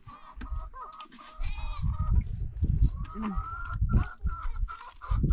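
Farm animals calling, including a high call with a wavering pitch, over scattered knocks and low thumps.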